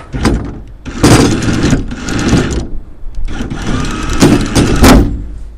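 Electric anchor windlass on a boat's bow, worked from its deck foot switches, running twice. About a second in it runs for roughly a second and a half, lowering the anchor on its pivoting bracket. After a short pause it runs again to winch the anchor back up, ending with a sharp loud knock near the end as the anchor seats in the bracket.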